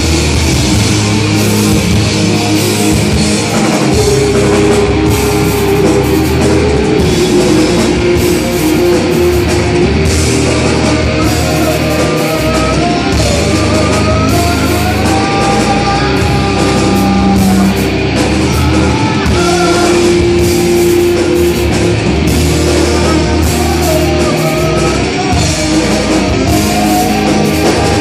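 Live heavy rock band playing loud: distorted electric guitars, bass guitar and a pounding drum kit, with a vocalist singing into a microphone.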